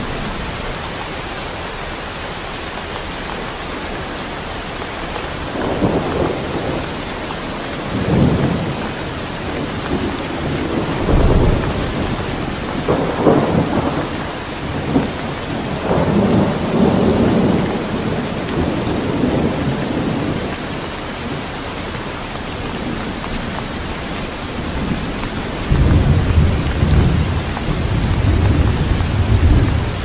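Steady rain falling on a corrugated roof and leaves, with thunder rumbling again and again over it and a longer roll near the end.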